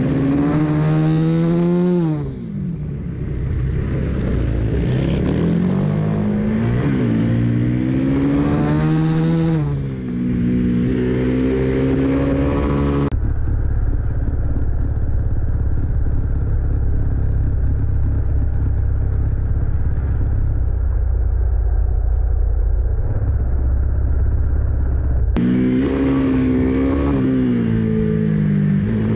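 Single-cylinder supermoto race bike heard from onboard, its engine revving hard and rising and falling in pitch through gear changes, dropping briefly under braking twice. Through the middle the sound turns abruptly muffled, a low steady rumble with the engine's pitch hardly showing, then switches back to the full engine sound.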